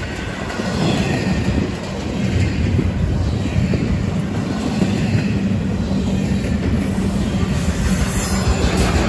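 Intermodal freight cars (double-stack container well cars, then trailer-carrying flatcars) rolling steadily past close by, with their steel wheels rumbling and clattering on the rails.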